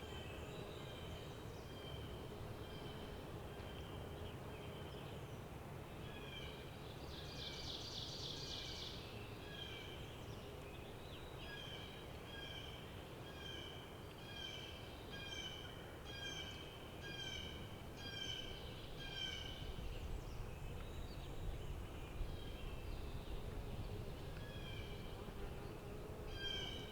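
Quiet spring woodland: a songbird repeats short clear notes about once a second, with a brief buzzy trill about seven seconds in and small high chirps, over a faint low rumble that grows in the last few seconds.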